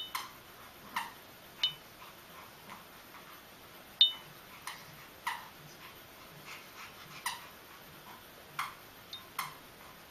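Rubber squeaky toy squeaking in short, irregular squeaks, about a dozen, as a Pomeranian chews it, the loudest about four seconds in.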